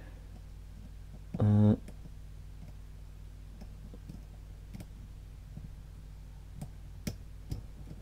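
Faint small clicks and ticks of a dimple pick working the pins inside a Mul-T-Lock Classic dimple lock cylinder, with a few sharper little clicks near the end. A short hummed 'mm' from the picker comes about a second and a half in and is the loudest sound.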